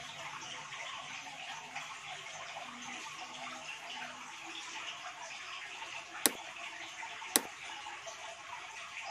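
Steady hiss like running water, with two sharp clicks about a second apart in the second half.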